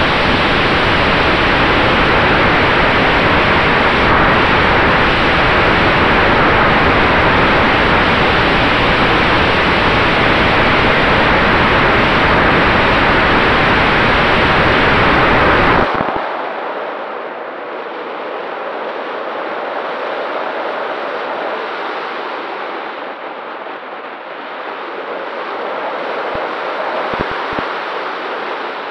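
Loud rush of wind and propeller wash on the onboard camera's microphone of a Multiplex Easy Glider Pro RC motor glider while its electric motor runs at power. About sixteen seconds in, the rush drops suddenly as the motor is cut and the plane glides, leaving quieter, thinner wind noise.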